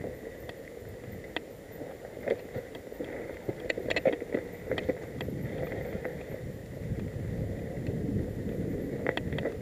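Mountain bike rolling down a dry, leaf-strewn dirt singletrack: tyre noise over leaves and dirt with scattered clicks and rattles from the bike, getting louder toward the end.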